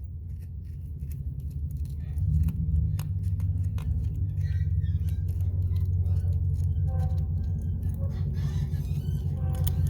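A steady low rumble, louder from about two seconds in, with scattered light clicks and taps of hand tools working on a truck's battery terminal and wires.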